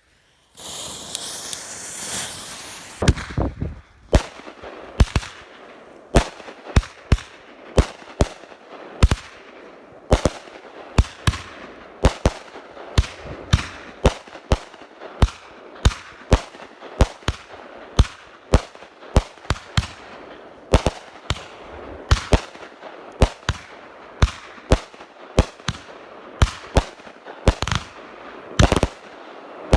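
Two World Class American Pyro 500-gram firework cakes going off. A fuse hisses for the first few seconds, then a long, steady string of sharp shots and bangs follows, about two to three a second.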